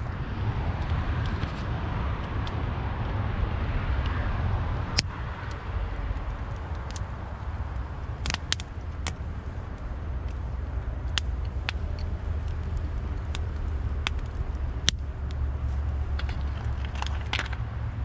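Wood fire burning in a metal fire bowl, with sharp pops and crackles from the burning wood scattered through, over a steady low rumble.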